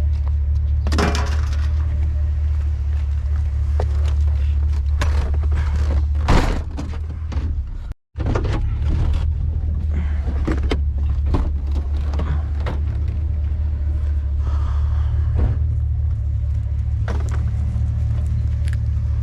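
A vehicle's steady low rumble runs under scattered knocks and rattles. The sound cuts out completely for a moment about eight seconds in.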